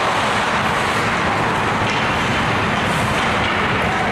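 Steady background din of an ice hockey arena during play: an even rushing noise with no single sound standing out.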